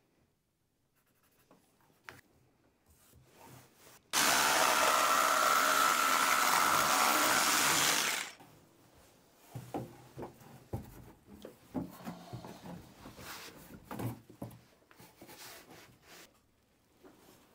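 Cordless jigsaw cutting a strip of thin hardboard, a steady buzzing cut that starts about four seconds in and stops about four seconds later. Afterwards come scattered light knocks and scrapes of the cut strip being handled and offered up in the hull.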